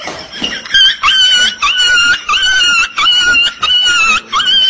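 Cat meowing over and over: about seven high, even-pitched cries of about half a second each, in quick succession.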